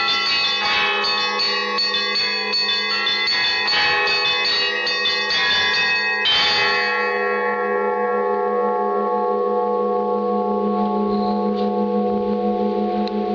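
Russian church bells of a cathedral bell tower in a noon peal: fast ringing of many bells ends with a last stroke about six seconds in, after which the bells ring on and slowly fade, the deep tones of the large bells humming with a slow pulse.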